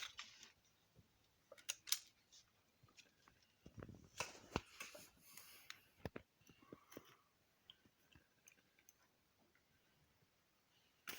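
Sparse light clicks and scrapes of metal piston rings being worked into a piston's ring grooves by hand, with quiet gaps between.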